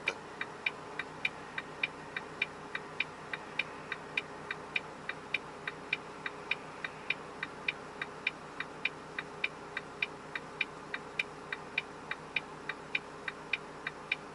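Cargo truck's indicator flasher clicking steadily in the cab, about three clicks a second, over the faint hum of the idling engine, while the truck makes a U-turn.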